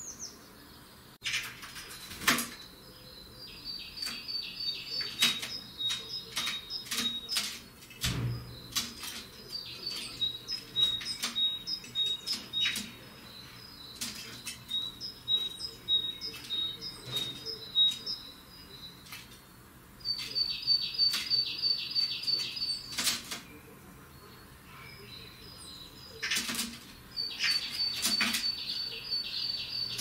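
Common blackbird pecking food from inside a glass jar lying on its side: sharp, irregular taps of its beak against the glass and seeds. Runs of rapid, high-pitched twittering notes from a bird come and go every few seconds.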